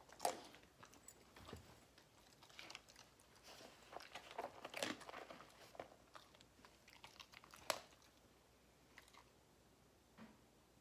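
A dog chewing and crunching small food treats: faint, scattered crunches and clicks that die away about eight seconds in.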